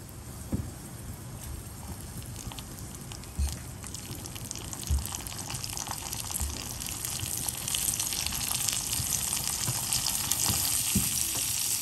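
Cashews and raisins frying in ghee in a clay pot: a steady sizzle that grows louder over the second half, with a few soft knocks in the first half.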